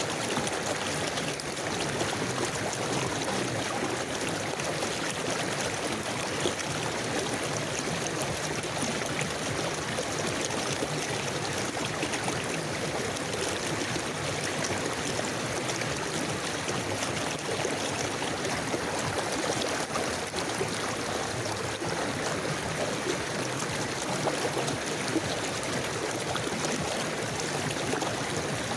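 Forest river flowing steadily over stones, a continuous rushing and gurgling of water with no changes.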